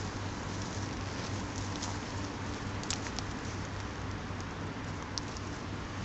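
Steady hiss with a few faint crackles and ticks, like rustling in dry grass and fallen leaves.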